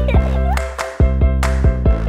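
Upbeat, bouncy children's background music with a steady beat.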